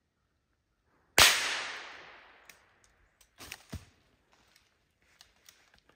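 A single gunshot about a second in, a sharp crack that trails off over about a second. A couple of fainter knocks and some light rustling follow.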